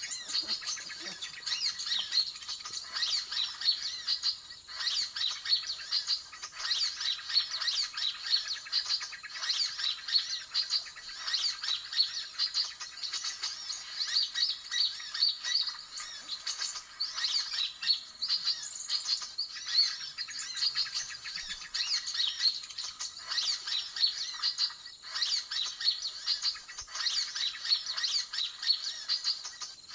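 Dense, continuous high-pitched chattering and chirping of small birds: a noisy 'ribut' lure call used in bird trapping to draw in sunbirds.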